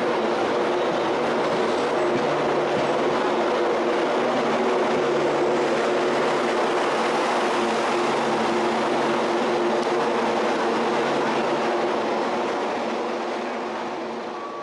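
Passenger train rolling past on the rails, a steady loud rumble with a low hum running through it, fading away over the last couple of seconds as the train draws off.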